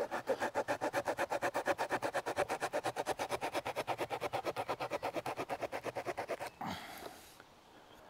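Victorinox Swiss Army Knife wood saw blade, waxed with candle wax to cut friction, sawing quickly through a wooden stick: even rasping strokes at about eight a second, stopping about six and a half seconds in.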